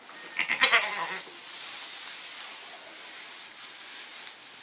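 A goat bleats briefly about half a second in, then straw bedding rustles steadily as hands move through it around the newborn kids.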